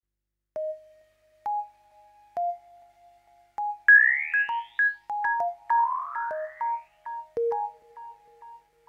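Electronic music intro: sparse single synthesizer notes struck one at a time, each with a sharp attack, with two rising pitch sweeps in the middle.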